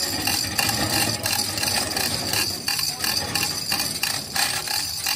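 Irregular knocks and clinks of hand tools on metal, several strikes a second with uneven spacing, over a steady background hiss.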